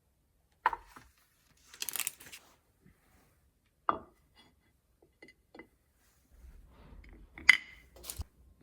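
Kitchen handling sounds: a few sharp clicks and knocks on dishes, with a brief crackly rustle about two seconds in.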